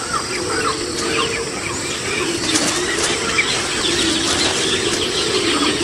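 Birds chirping, many short quick calls scattered throughout, over a low steady wavering hum.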